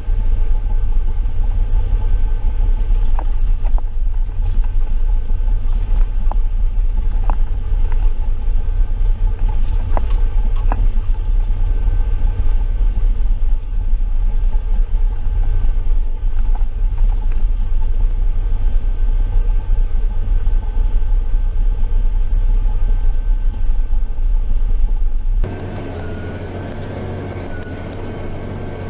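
Heavy farm machinery engine running at a steady speed, deep and loud, with a few faint clicks in the first half. About 25 seconds in it cuts abruptly to a quieter engine sound.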